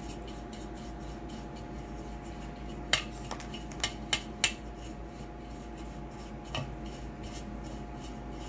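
Pastry brush rubbing melted butter into the cups of a metal flower-shaped cake pan, with a few sharp clicks against the pan between about three and five seconds in and one more near seven seconds, over a steady electrical hum.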